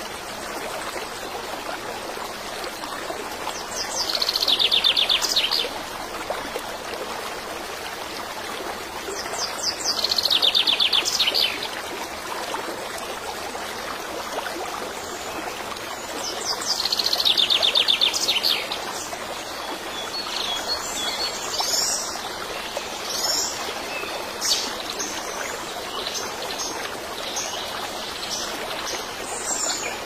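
A stream runs steadily while a songbird sings the same short, rapid, descending trill three times, several seconds apart. Scattered short chirps follow in the second half.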